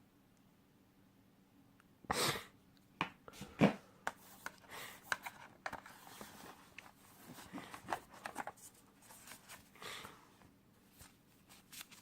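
Hands handling phone packaging: irregular rustling, clicks and light knocks of cardboard and plastic, starting about two seconds in, with one sharper knock a little later.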